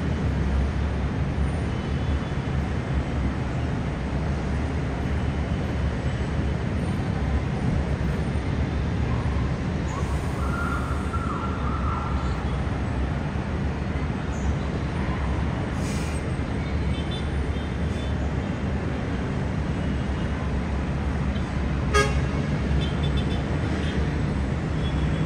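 Distant city road traffic: a steady low rumble of many cars and buses, with a car horn sounding for about a second and a half roughly ten seconds in and a single sharp knock near the end.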